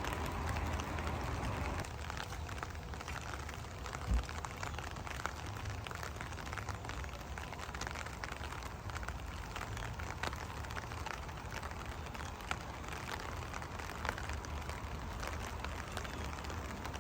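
Rain falling, with many small drops ticking close by over a low rumble. There is one short low thump about four seconds in.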